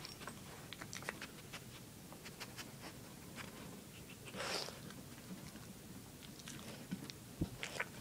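Dog chewing and crunching treats right up against the microphone, with many small scattered clicks and a brief louder rush of noise about halfway through.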